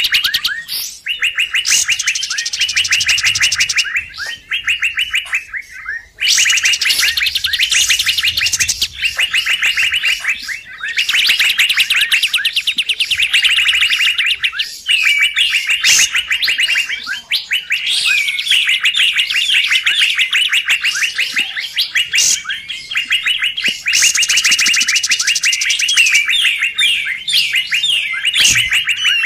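Lure recording of kapas tembak birdsong, fast excited chattering trills repeated in long bursts, meant to draw in wild kapas tembak. The calls break off briefly about four and six seconds in.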